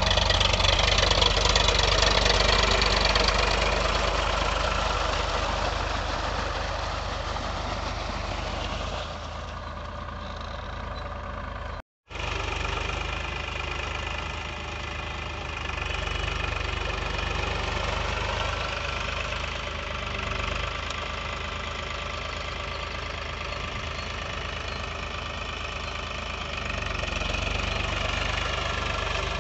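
Powertrac Euro 45 tractor's three-cylinder diesel engine running steadily under load while pulling a puddler and leveler, with cage wheels churning through water and mud. The sound drops out briefly about twelve seconds in.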